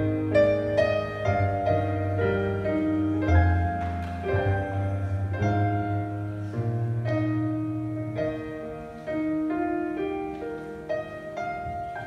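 Piano accompaniment playing the closing instrumental of a song, single notes and chords struck and left to ring, slowly getting quieter.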